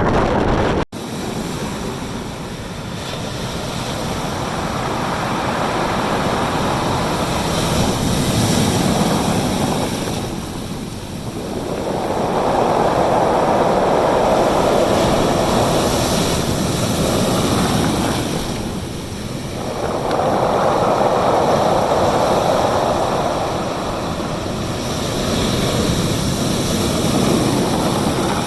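Gale-force wind and sea surf on the coast, a continuous noise that swells and eases every several seconds. The sound cuts out for an instant about a second in.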